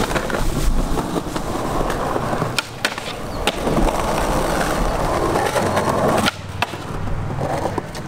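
Skateboard wheels rolling over concrete paving, a steady rumble broken by a few sharp clacks of the board a little before the middle. The rolling noise drops off suddenly about three-quarters of the way through.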